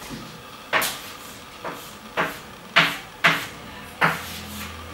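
Chalk writing on a blackboard: six short, sharp strokes and taps, each fading quickly, spaced about half a second to a second apart.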